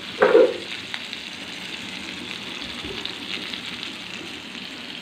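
Potatoes and spices frying in oil in a karahi, a steady sizzle, with one loud scrape or knock of a metal spatula against the pan near the start.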